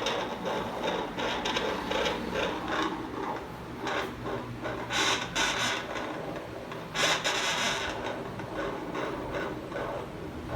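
Irregular rubbing, scraping and knocking, with louder rasping bursts about five and seven seconds in.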